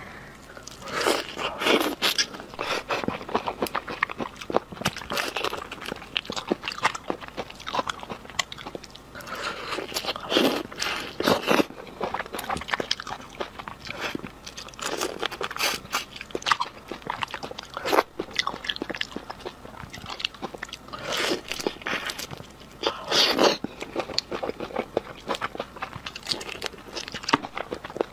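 Close-miked eating of roe-stuffed shrimp: biting and chewing, with many small sharp crunches and crackles in quick succession.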